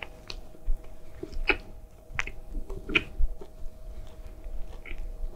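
Close-up chewing of a large bite of a McDonald's Gran Crispy McBacon burger with crispy bacon: short, irregular crunches and wet mouth clicks.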